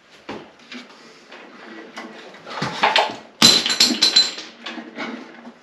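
Tremec TKX transmission being worked by hand into a small-block Chevy's bell housing: scattered metal clicks and clunks, with one loud metallic clash and scrape about three and a half seconds in that rings with a high tone for about a second.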